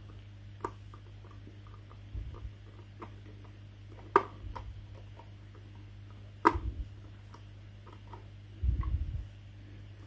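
Small screwdriver turning the screw of a plastic toy washing machine's battery cover: faint ticks and scratches of metal in the screw head, with two sharp clicks about four and six and a half seconds in. Dull knocks of the plastic casing being handled near the end, over a steady low hum.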